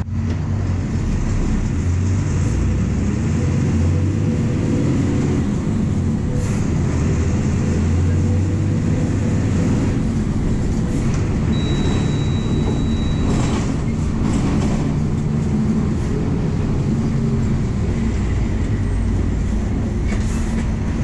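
The MWM 6.12 TCE six-cylinder turbodiesel of a VW 17.230 EOD bus running steadily under way, heard from inside the passenger cabin as a constant low drone. A few light rattles sound, and a brief high steady tone comes in about twelve seconds in.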